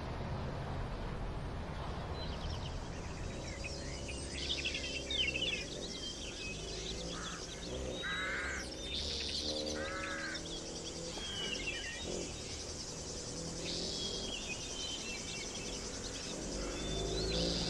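Birds chirping and trilling in short repeated calls, over a low steady rumble of a car's engine.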